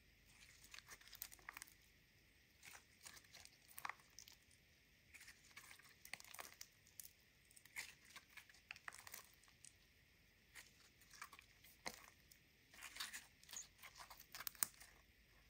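Clear slime mixed with green eye shadow being stretched, folded and squeezed by hand: faint sticky clicks and crackles in irregular clusters as it pulls apart and presses back together.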